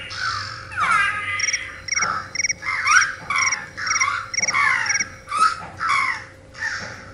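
Wrapples interactive wrist-toy pet making its electronic creature sounds through its small speaker: a run of about a dozen short squeaky calls that slide up and down, with quick chirping trills mixed in. It has just been turned upside down, which is how the toy is put into its sleep mode.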